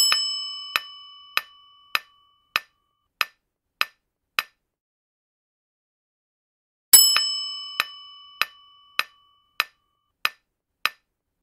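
Quiz countdown timer sound effect: a bright bell-like ding that rings out, followed by a run of sharp clock-like ticks about every 0.6 seconds. This happens twice, the second ding about seven seconds in, with a short silent gap between the runs.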